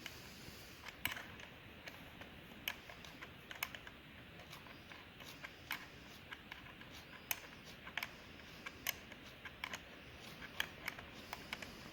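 Faint, irregular light clicks and taps of hand work on a motorcycle battery and its thick cables, a few per second.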